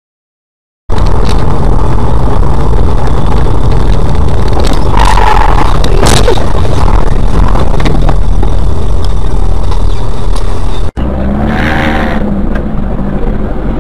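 Loud, distorted road and engine noise picked up by a car dashboard camera while driving, with a short sharp knock about six seconds in. It cuts off abruptly near the end and gives way to quieter traffic noise.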